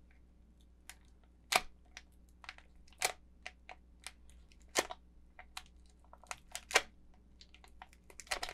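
Foil Pokémon booster pack wrapper crinkling in short, scattered crackles as fingers pick at it, struggling to tear it open.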